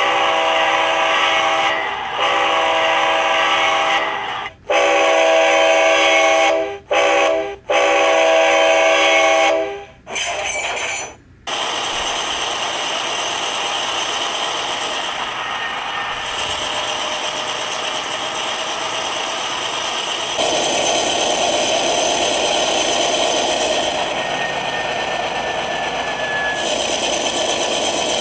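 Sound decoder in an HO-scale GE Dash 9 diesel model playing through its small speaker. A diesel horn sounds a series of blasts, mostly long with a short one among them, over the first ten seconds. The simulated diesel prime mover then runs steadily and grows louder about two-thirds of the way through.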